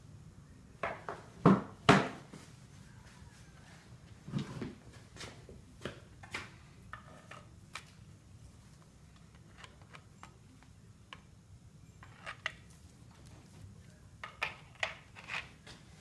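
Scattered metallic clinks and knocks of a metal bar against the crankshaft and main bearing caps of a 5.7L HEMI engine block, the two loudest about one and a half and two seconds in, then lighter taps in small clusters. A faint low hum runs under them.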